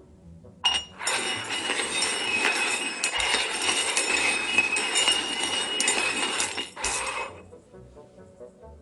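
Cups being shuffled around on a hard surface: a continuous clatter of sliding and clinking that starts just under a second in and stops about six seconds later.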